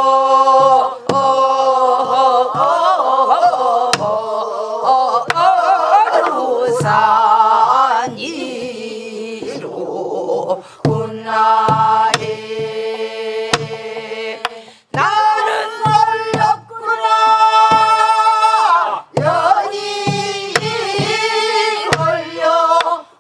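A group of women and men singing a Korean Namdo folk song together in long, bending notes, kept in time by strokes on buk barrel drums beaten with a stick.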